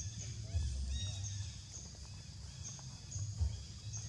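Newborn baby monkey crying in short, high, arched squeaks, several in a row, with a low rumble underneath.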